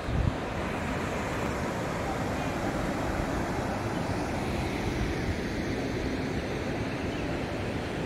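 Steady rushing of river water spilling over a row of low cascades, with wind buffeting the microphone.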